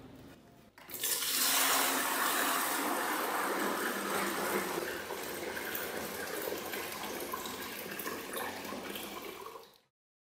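Water pouring and splashing into a glass tank as it fills. It starts about a second in, runs steadily, and stops suddenly near the end.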